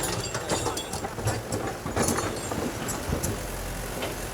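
Heavy construction machine's engine running steadily, with scattered metallic knocks and clanks, one louder about two seconds in.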